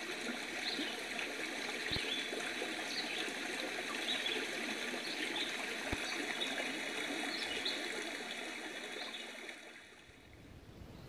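Woodland stream running and trickling over rocks, a steady rushing water sound that dips briefly near the end.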